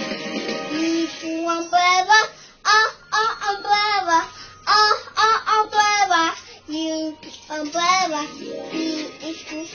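A young child singing a phonics song line for the letter U, 'umbrella', over backing music, with a strummed guitar at the start.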